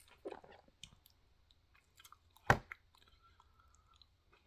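Close-up chewing of a crunchy fish taco, with soft wet mouth sounds and one sharp, loud crack about two and a half seconds in.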